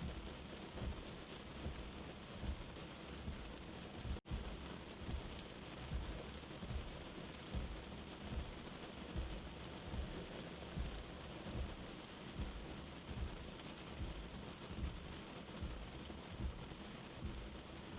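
Steady rain, with short low thuds recurring about once a second, and a momentary dropout about four seconds in.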